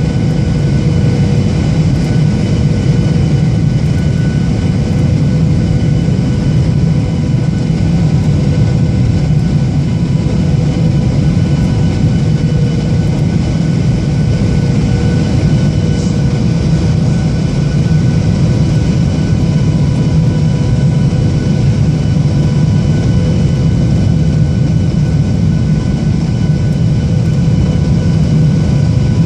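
Cabin noise of a Boeing 737-800 airliner in flight: a steady, loud roar of engines and airflow, deepest in the low end, with a few faint steady whining tones above it.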